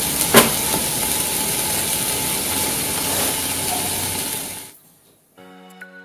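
A red-hot knife blade searing into a chocolate egg's shell, with a loud, steady sizzling hiss as the chocolate melts and burns, and a sharp crack about half a second in. The hiss cuts off abruptly near the end.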